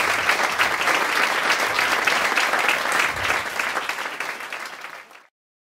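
A theatre audience applauding: many hands clapping together. The applause fades out about five seconds in and then stops.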